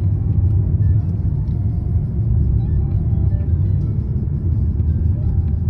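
Steady low rumble of a car driving on a winding road, heard from inside the cabin, with faint music over it.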